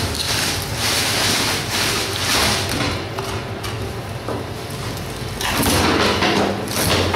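Knife cutting and hands working raw meat on a cutting board, in uneven noisy swells over a faint steady hum.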